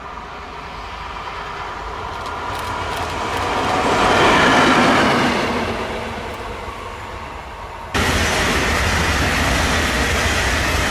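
Electric double-deck regional train passing: rushing wheel-on-rail noise builds to a peak about four seconds in and eases off, then jumps suddenly about eight seconds in to a steady, louder rumble of the double-deck coaches running by close.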